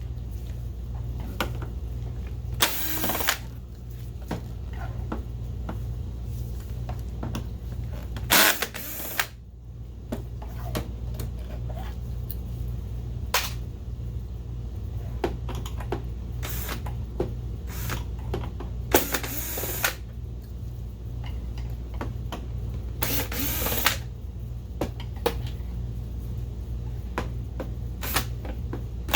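Screws being backed out of a projector's top cover with a screwdriver: several short bursts of driving noise a few seconds apart and scattered small clicks, over a steady low hum.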